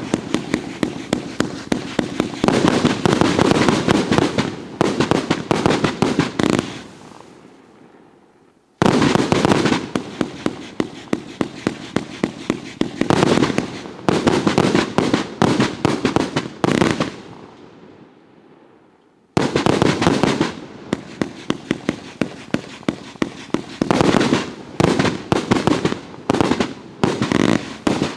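108-shot fireworks cake with 30 and 36 mm tubes firing in rapid volleys: three long runs of quick, sharp shots. Each run tails off and fades for a second or two, and the next starts about 9 and 19 seconds in.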